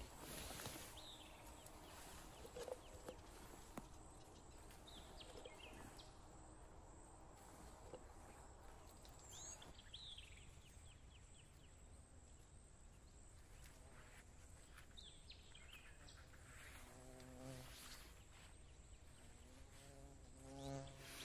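Near-silent forest with a few faint high chirps, then a fly buzzing close by, coming and going, late on.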